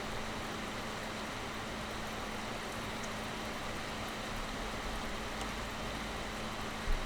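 Heavy rain pouring steadily, an even hiss with a faint steady hum beneath it. There is a brief low thump near the end.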